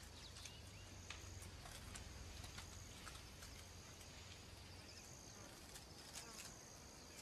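Faint natural ambience: high insect trills repeating in short bouts, with a few faint clicks scattered through.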